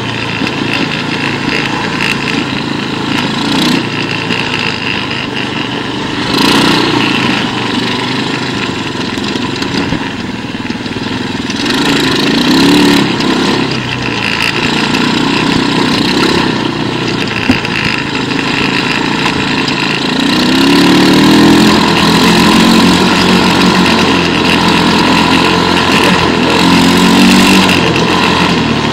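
Quad bike engine running as it is ridden, its pitch rising and falling with the throttle, with harder revving about halfway through and again for much of the last third.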